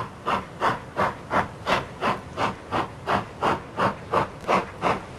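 Steam locomotive exhaust chuffing in an even rhythm, about three beats a second.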